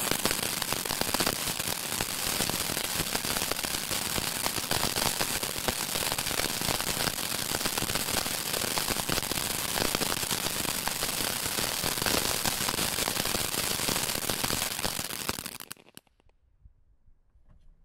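Feng Shui Cascade firework, loaded with 300 grams of powder, burning with a dense, continuous crackle of fast small pops. About fifteen seconds in it fades out quickly, leaving only a few faint crackles.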